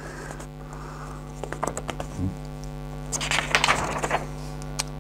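Paper packing material rustling and crinkling as it is handled and pulled from a cardboard box, loudest about three seconds in, after a few light taps. A steady electrical hum runs underneath.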